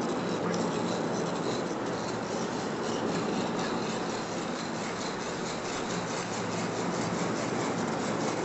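Metal spoon scraping and pressing thick blended raw-mango pulp through a stainless steel mesh sieve, a steady rasping rub of metal on wire mesh as the pulp is pushed through.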